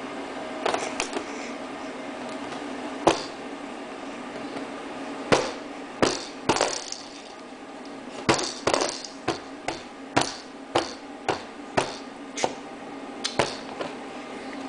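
A baby slapping her hand on her highchair, making sharp, irregular knocks. There are a few knocks in the first seconds, then about one or two a second from about five seconds in.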